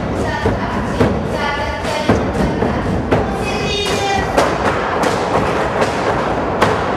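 Dancers' feet stamping and striking the studio floor in a quick rhythm, over folk dance music.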